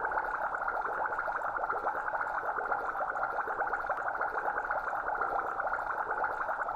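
Flowing stream water heard underwater: a steady gurgling, bubbling rush with a fine rapid crackle.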